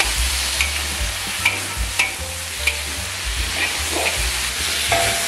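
Chicken and potato pieces sizzling as they are stir-fried, with a spatula scraping and knocking against the pan about once a second.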